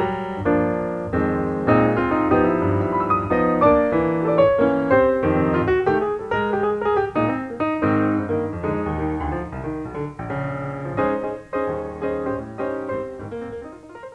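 Background piano music playing a busy run of notes, growing quieter toward the end.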